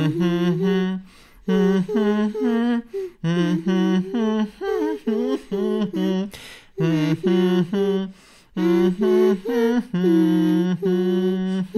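A single voice singing a wordless melody in phrases of long held notes, each about a second long, with short breaks between them.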